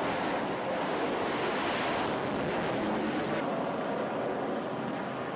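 Jet noise from a Vought F-8 Crusader at full power on the carrier's catapult, a loud steady rush. About three and a half seconds in, the sound changes abruptly and loses its highest part.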